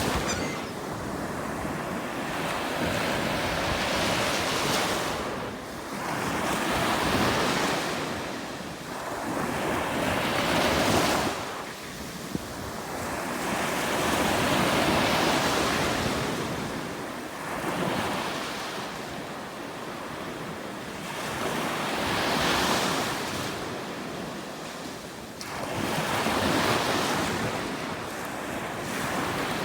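Ocean waves breaking and washing up the beach, surging and fading every few seconds, with wind rumbling on the microphone.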